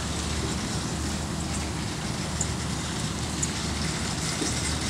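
Pump running steadily with water rushing through a hose, as a geothermal ground loop is flushed to purge the air out of it. A constant low hum under an even hiss.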